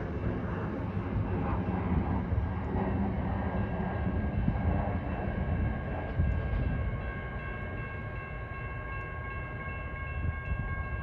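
Sound Transit Sounder commuter train rumbling over the rails as it pulls away. A steady high-pitched tone sets in about halfway through and holds.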